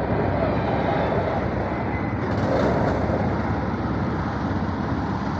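Steady rumble of motor vehicle engines running, with general street noise.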